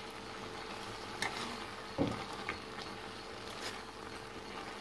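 Mutton and spice powders frying with a soft sizzle in a pressure cooker while a steel ladle stirs them, knocking and scraping against the pot a few times.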